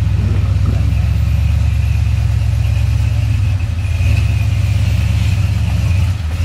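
Early Ford Bronco's engine running at low revs with a deep, even exhaust note as it crawls over rocks. The throttle eases off briefly about three and a half seconds in and again near the end.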